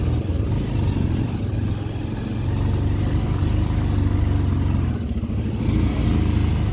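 Motorcycle engine running under load as it rides up a loose dirt track, a steady low drone that swells and dips with the throttle.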